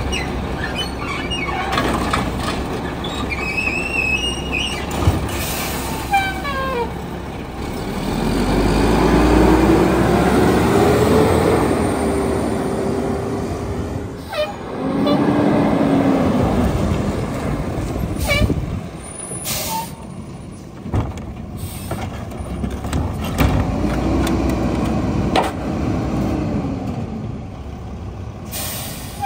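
Mack LE garbage truck's engine revving up and down three times to drive the hydraulics as the automated side arm dumps a cart and the Heil 7000 rear packer cycles. Several short air-brake hisses come between the swells.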